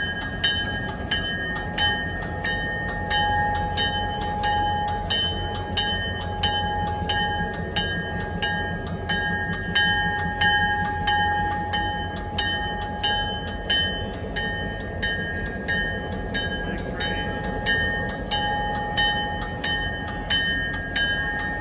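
Diesel locomotive bell ringing steadily, about two strikes a second, over the low rumble of an EMD GP38-2 diesel locomotive.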